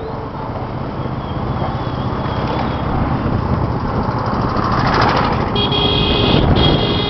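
Motorcycle running along a road, with steady road and engine noise that slowly grows louder. A horn sounds about five and a half seconds in, first a short blast and then a longer one.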